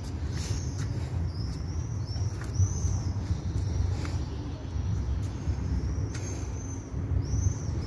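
Birds chirping with short, high, arching notes about once a second, over a steady low rumble.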